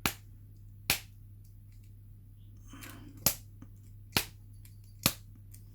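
Abus 85/50 brass padlock being knocked against a hard surface: five sharp knocks, unevenly spaced, to try to shake a key pin out of the plug.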